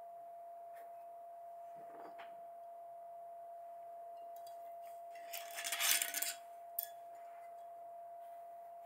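Glass and ceramic clinking and rattling for about a second midway, as a small ceramic cup and a glass whisky bottle are handled on a desk, followed shortly by a single click. A faint steady tone hums throughout.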